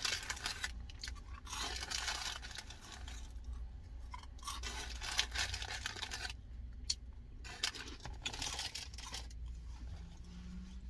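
Fast food and its paper packaging being handled close to the microphone: about six bursts of crinkling and crunching, with small clicks, over a steady low hum.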